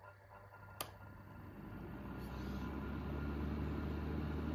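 Kumtel electric fan heater switched on with a click about a second in, its fan motor spinning up and the blowing growing louder over the next two seconds, then running steadily. The repaired heater is working again and blowing well.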